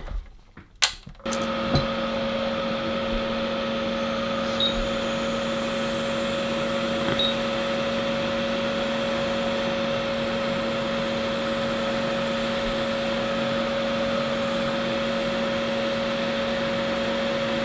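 Small bench extractor fan switched on about a second in, then running steadily with a hum, together with a hot-air rework gun blowing on a burnt chip to desolder it.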